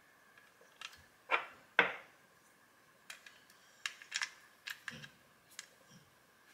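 Batteries being slid into the battery tube of a Streamlight TRL-1 HL X weapon light: three louder clacks with a short scrape in the first two seconds, then a run of light metal and plastic ticks as the parts are handled.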